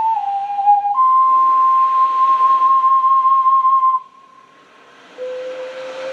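An ocarina playing a slow melody in pure single tones: two short lower notes, then a long high note held for about three seconds. The playing breaks off for about a second, then comes back on a lower note.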